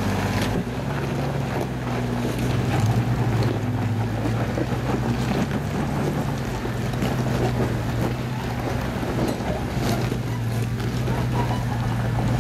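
Off-road vehicle engine running at a steady low speed, with wind buffeting the microphone.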